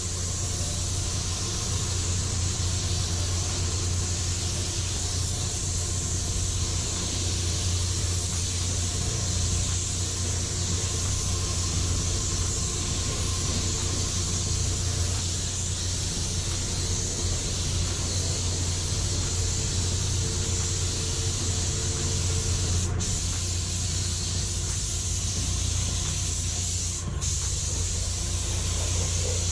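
Automotive paint spray gun hissing steadily as compressed air atomizes a basecoat onto a car body, over the steady low hum of the spray booth's fans. The hiss breaks off briefly twice near the end as the trigger is let go between passes.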